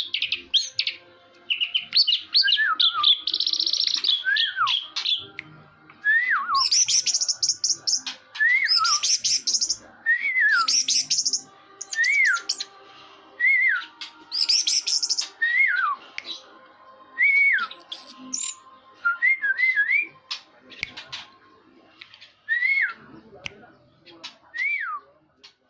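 Orange-headed thrush singing: a run of repeated phrases, each a shrill burst of high chattering notes followed by a short whistle that rises then falls, coming about every one and a half to two seconds.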